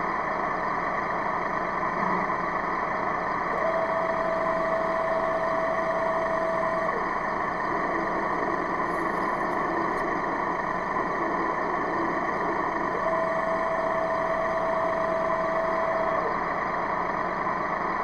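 Tamiya full-option RC tank's sound unit playing a simulated tank engine idling steadily through its speaker. A thin whining tone joins it twice, about four seconds in and again around thirteen seconds, each lasting about three seconds, as the turret traverses.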